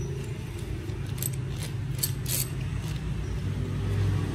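Metal hand drill being handled: a few light metallic clicks and rattles over a steady low hum.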